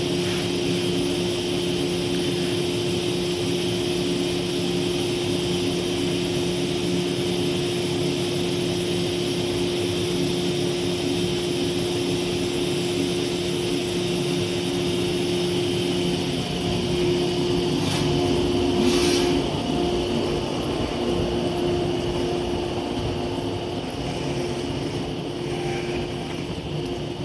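Steady drone of a Shinano Railway 115-series electric train standing at the platform: its onboard equipment gives a constant hum made of several steady tones. About 18 and 19 seconds in there are two short hisses, and the sound eases off near the end.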